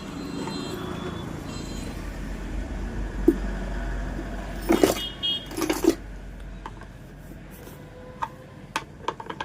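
Small metal parts and tools clinking and knocking against the mixer grinder, loudest in a cluster about five seconds in and a few lighter clicks near the end, over a low rumble.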